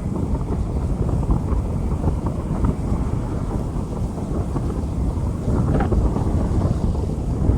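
Rain falling on a street: a dense, steady rush, deep and heavy at the low end, with scattered faint ticks of drops.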